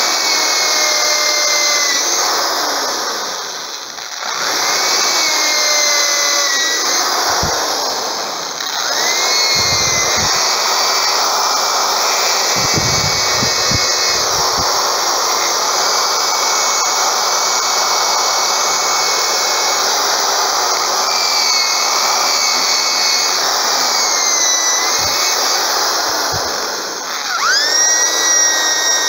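Corded electric drill running as its bit bores a row of holes through a wooden pandeiro hoop to open a jingle slot. The motor's whine dips and picks up again several times as the drill is eased off and restarted between holes.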